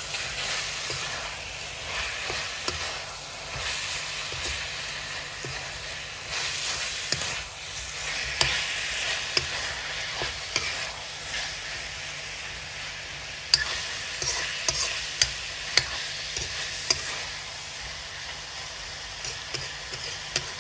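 Chicken pieces frying in oil in a metal kadai, sizzling steadily while a steel spoon stirs and scrapes them. Sharp clicks of the spoon striking the pan ring out repeatedly in the second half.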